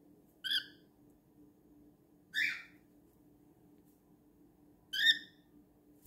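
Cockatiel giving three short, sharp calls a couple of seconds apart, the last the loudest.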